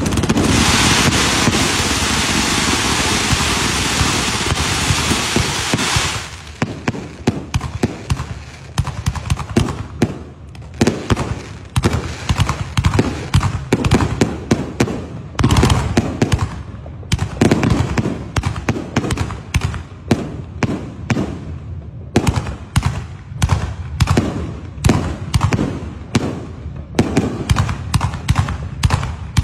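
Fireworks: a ground fountain hissing loudly for about six seconds, then a long run of rapid cracks and bangs from aerial shells launching and bursting overhead, several every second.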